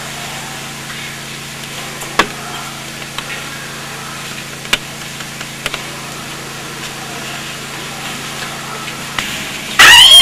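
A steady low hum with a few sharp clicks scattered through it. Near the end, loud music with a sustained brass-like tone cuts in suddenly.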